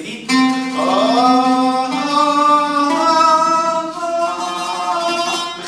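A man singing long held vowel notes in a vocal-range exercise, stepping to a new pitch every second or so, with an oud played along.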